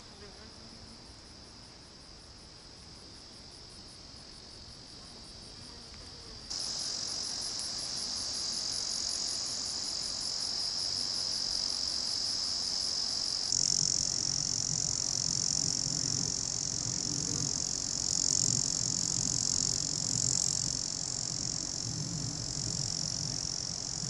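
A steady, high-pitched chorus of insects chirring in the summit vegetation. It gets abruptly louder about six seconds in and again about thirteen seconds in, when a low, fluctuating rumble joins it.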